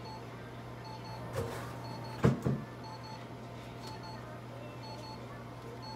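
Steady electrical hum with faint, on-and-off electronic beeps from a red-light therapy unit in use. Two sharp knocks a little over two seconds in are the loudest sounds, with a lighter one just before.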